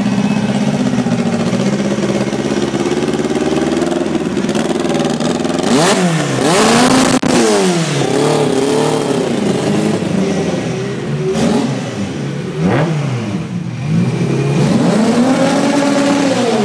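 Honda car engine idling, then revved hard several times, its pitch climbing and falling with each rev. The first rev, about six seconds in, is the loudest.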